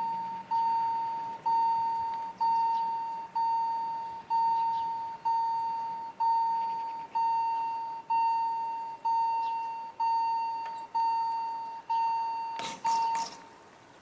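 Level-crossing warning bell ringing steadily about once a second, each stroke dying away, as the barriers come down to warn of an approaching train. It stops shortly before the end, with a brief clatter.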